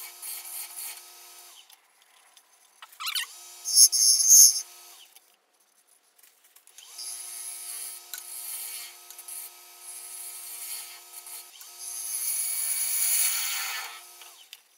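A Revo 18|36 wood lathe runs with a steady whine while a thin parting tool cuts into the side of a spinning cherry bowl, giving a scraping hiss that swells in a few louder passes. The sound stops and starts abruptly a few times, with short silent gaps between.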